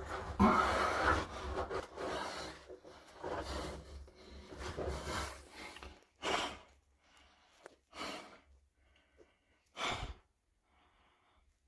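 A person breathing hard and rustling while squeezing through a tight cave passage. The first six seconds or so are continuous rustling and breathing; then come three separate loud breaths about two seconds apart.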